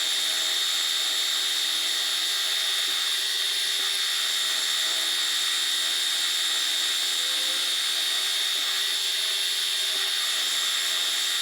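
Cincinnati milling machine taking the final cut on a hex flat of a metal hydraulic fitting: a steady high-pitched whine of the cutter working the metal, easing off right at the end.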